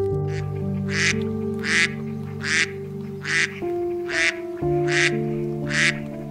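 Duck quacking over and over, about one quack every three-quarters of a second, over soft background music with long held notes.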